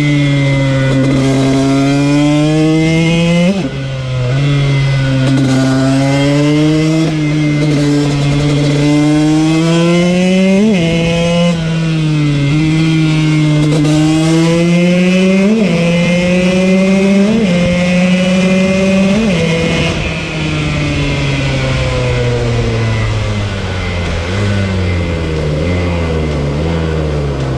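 KTM 125 two-stroke supermoto engine pulling hard through the gears: the revs climb and drop sharply at each of several upshifts. Near the end the pitch steps down in a run of quick downshifts as the bike slows.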